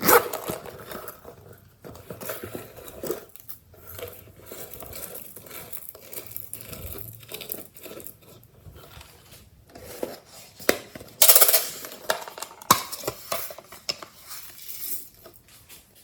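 Glossy slime being mixed and handled, with quick clicks and squishes and a utensil scraping a container. A louder, noisier stretch comes about eleven seconds in.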